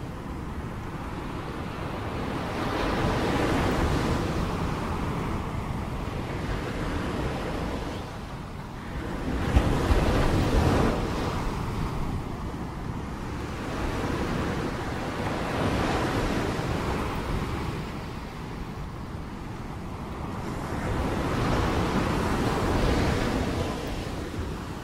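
Sea waves washing in on the shore, the surf rising and falling in slow surges every few seconds, the loudest about ten seconds in, over a steady low rumble of wind on the microphone.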